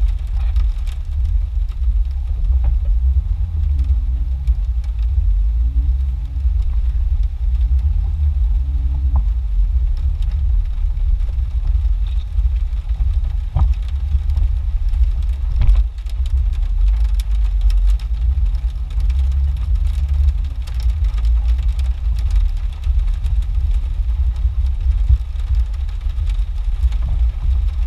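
Jeep engine running at low speed on an off-road trail, heard from inside the cab: a steady low rumble with the engine note rising and falling a few times, and a few light knocks.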